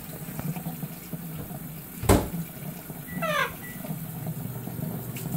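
Kitchen tap running into the sink, a steady hiss while the water heats up. A sharp knock about two seconds in, and a short squawk from a baby macaw a second later.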